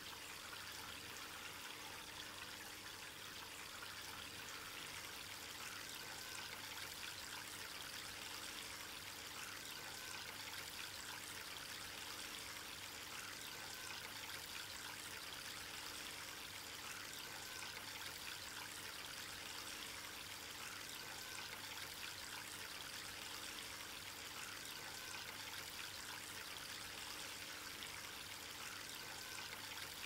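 Water trickling and splashing steadily as it spills from tier to tier of a Peaktop 201601PT polyresin stacked-stone four-tier bowl fountain.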